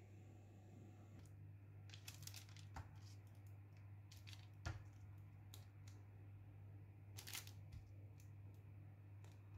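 Faint clicks and rustles of metal kitchen tongs turning meatballs on a parchment-lined baking tray, starting about two seconds in, with one sharper click a little before five seconds. A low steady hum runs underneath.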